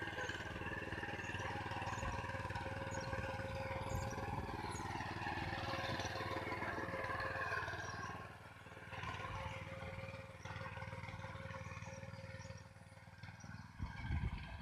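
Small engine of a walk-behind power weeder running steadily under load as its tines churn the soil. The sound drops and changes about eight seconds in, with low rumbles near the end.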